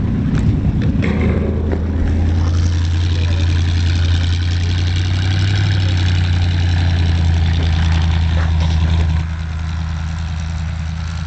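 Engine of a 1947 Bombardier snowmobile running steadily as the tracked machine drives off across the snow-covered ice, with a steady hiss above the low drone. The sound drops in level about nine seconds in.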